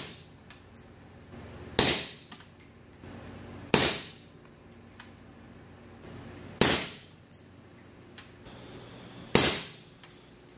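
Four suppressed rifle shots fired through an AB Suppressor Warthog, two to three seconds apart, each a sharp crack with an echoing tail of about a second.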